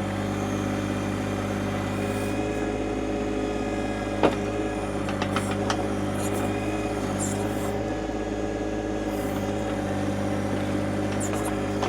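John Deere 2025R compact tractor's diesel engine running at steady speed while the backhoe works, with one sharp knock about four seconds in and a few lighter clicks a second later.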